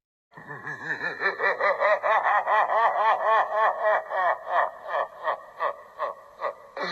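Menacing villain laughter, a long run of 'ha' syllables about three a second that slows and grows quieter toward the end, then cuts off abruptly.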